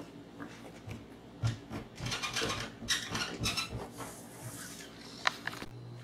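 Scattered small knocks and clicks of handling and movement, with a denser rattling clatter around the middle and one sharp click near the end, after which a low steady hum begins.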